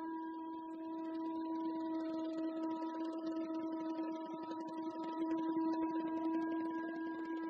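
A single long musical note held steadily at one pitch, rich in overtones, from a sustained wind or keyboard instrument.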